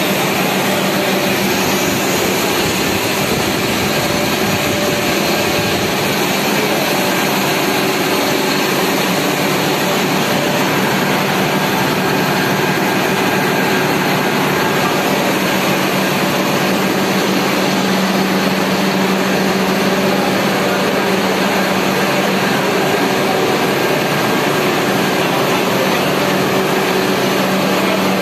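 Copper-wire coil winding machine running, a steady, even machine noise with a constant hum that grows a little stronger about halfway through. The machine is running normally again after its faulty control board was repaired.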